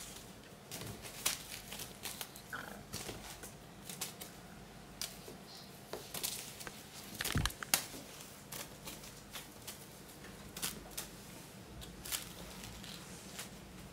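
Burmese kittens' claws and paws clicking and scrabbling on a ceramic tile floor as they pounce and bat at a string toy: irregular quick ticks and scrapes, with one dull thump about seven seconds in.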